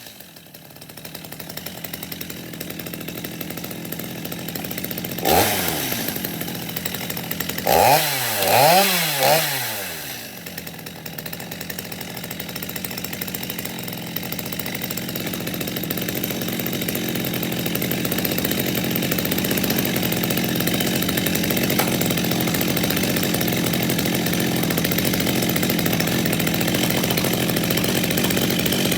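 Stihl MS230 two-stroke chainsaw engine running, revved once briefly about five seconds in and three times in quick succession around eight to nine seconds, then idling steadily.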